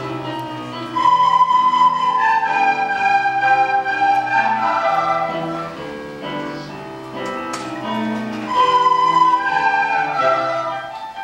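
A large group of children playing soprano recorders together, a simple melody of held notes over an accompaniment with low bass notes. The recorders come in loudest in two phrases, about a second in and again near the end.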